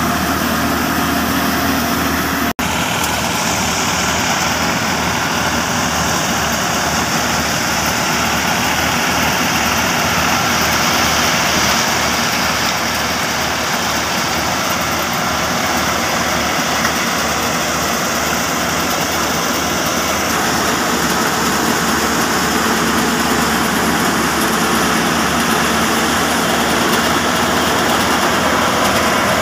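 New Holland 480 tractor's diesel engine running steadily under load, driving a grain thresher through its PTO shaft and V-belts, with the thresher's drum and pulleys adding a dense, even mechanical rush over the engine's low throb.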